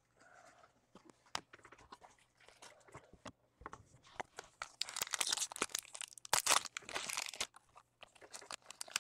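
A foil trading-card pack being torn open and crinkled by hand: light rustles and clicks at first, then a dense spell of tearing and crinkling from about four seconds in until about seven and a half seconds in.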